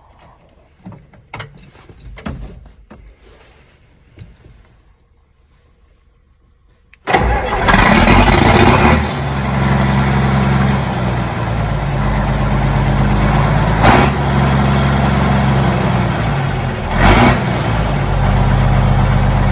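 A few faint clicks and knocks, then about seven seconds in the John Deere 4440's six-cylinder diesel engine turns over and starts at once on fresh batteries, settling into a steady, loud idle. Two short, loud sounds cut through it near the end.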